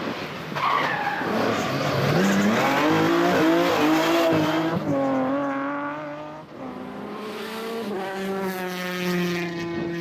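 Rally car engines at high revs. For the first five seconds a car accelerates hard, its note climbing with a few drops at the gear changes, then falls away as it passes. About seven seconds in, a second car's engine comes in, its note rising slowly as it approaches.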